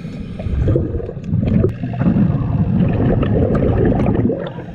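Scuba diver's regulator exhaust bubbling underwater: a long gurgling exhale of about three and a half seconds that fades out near the end.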